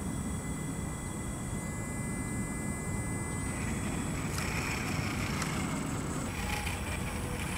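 An RC4WD Trailfinder 2 scale crawler's electric motor and gears whine as it creeps over loose sand, starting about halfway through. Wind rumbles on the microphone throughout.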